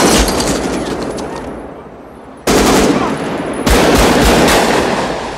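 Automatic rifle fire from a film soundtrack. A burst at the start fades away in a long echo, then two more sudden loud volleys come about a second apart, each ringing out slowly.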